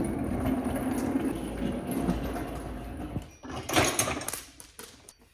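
Wheeled engine stand carrying a bare Porsche engine block being rolled across a concrete shop floor, its casters rumbling steadily. A loud metallic clank comes a little under four seconds in, followed by a few lighter clicks.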